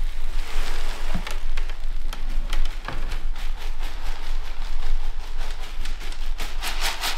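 Akadama, a granular clay bonsai soil, pouring from a bonsai scoop into a large bonsai pot: a steady pattering hiss of grains with many small ticks, thickening near the end.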